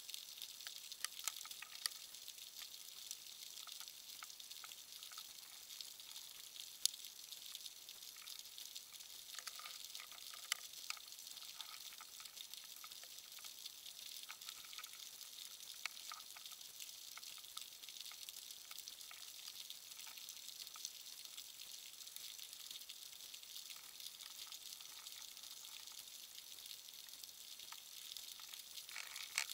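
Underwater reef crackle: a steady fizzing of countless tiny clicks, typical of snapping shrimp, with a few louder single snaps scattered through it.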